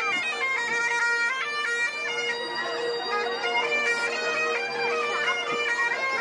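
Music: a melody stepping from note to note over a steady held drone.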